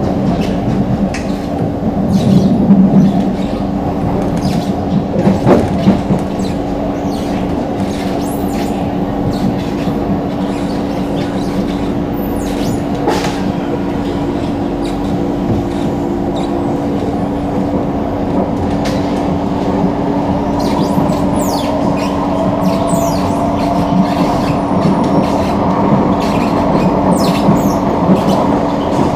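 Singapore MRT train running on the line, heard from on board: a steady rumble with a constant hum, scattered sharp clicks from the wheels and track, and a whine that slowly rises in pitch over the last third.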